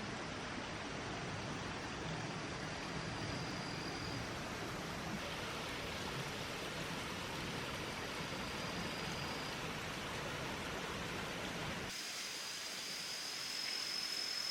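Steady rushing outdoor noise with no distinct events, with a faint thin high whine now and then. Near the end the low rumble drops out abruptly and the high whine becomes steadier.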